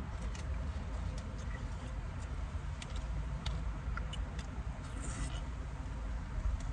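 Steady low rumble inside a car's cabin, with scattered small clicks and scrapes of a plastic spoon in a paper Frosty cup while people eat.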